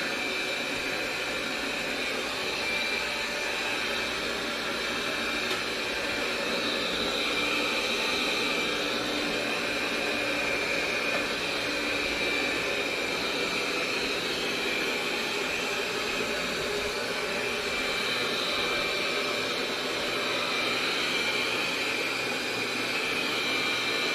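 Inic i9 robot vacuum running: a steady, high whine of its suction fan over a hiss, with no change in pitch.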